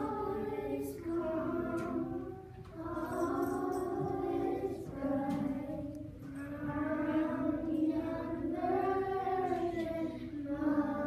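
A class of second-grade children singing a song together in unison, in several sustained phrases with brief dips between them.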